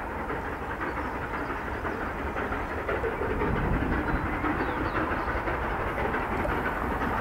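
Distant double-headed steam locomotives, LMS 6100 Royal Scot and 45231 Sherwood Forester, working a train, heard as a steady rush of exhaust and train noise.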